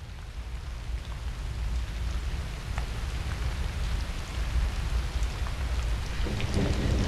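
Steady rain with scattered drips, fading in and growing louder; a low rumble builds near the end.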